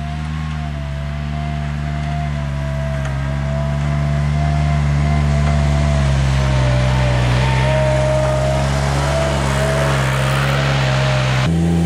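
Avant 635 mini loader's engine running steadily as it pushes snow with its front blade, with a thin whine over the engine note that wavers slightly in pitch. The sound changes abruptly at the start and about a second before the end.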